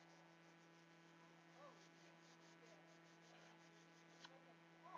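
Near silence: a faint steady electrical hum, with a faint click about four seconds in.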